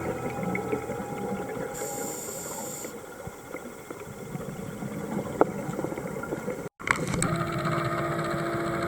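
Underwater sound picked up by a dive camera: a crackling hiss, then, after a brief cut, a steady mechanical hum with a couple of sharp clicks.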